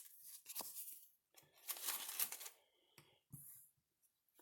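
Faint tearing, crinkling and small clicks of packaging being handled as a security tag is peeled off a retail trading-card box, in short scattered bits with a longer rustle near the middle.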